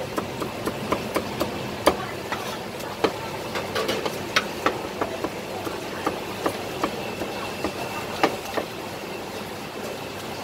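Cleaver strikes on a thick round wooden chopping block, irregular knocks as roast meat is cut into slices, thinning out near the end. A steady background din runs underneath.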